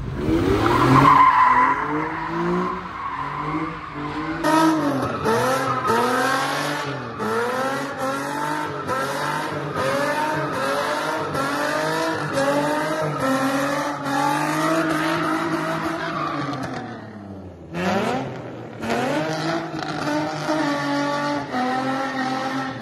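Car drifting: the engine revs climb and fall about once a second while the tyres screech, with a short break about 17 seconds in before the same again.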